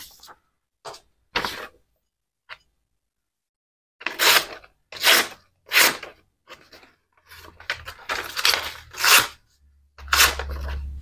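Freshly sharpened Lie-Nielsen No. 5 plane iron slicing through a sheet of paper held in the air. Soft paper rustles come first, then a run of about eight short, crisp cuts. The clean slicing shows a keen edge.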